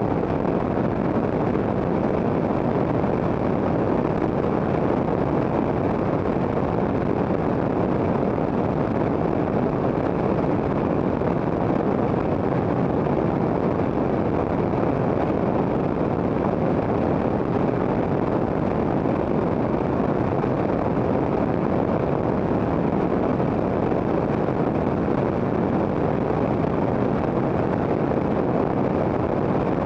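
Steady rush of airflow and engine noise from a Quest Kodiak's turboprop in flight, heard through a camera mounted outside on the wing with wind buffeting the microphone.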